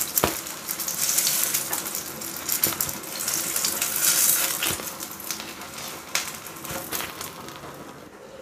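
Hot oil sizzling in a non-stick pan as fried whole baby eggplants are lifted out with a spatula, with scattered clicks of the spatula against the pan. The sizzling dies down toward the end.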